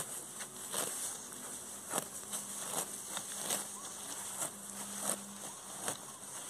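Grass rustling and crackling with irregular soft knocks as someone steps barefoot and bends in tall grass close to the microphone.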